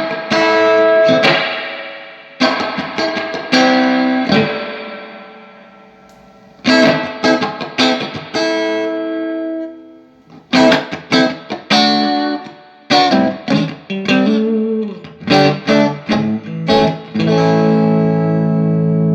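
Electric guitar played through a 1966 Fender Vibrolux Reverb tube amp, tested after repair and a tube check. Chords are left to ring and fade, then short, choppy chords come from about ten seconds in, and a held chord near the end.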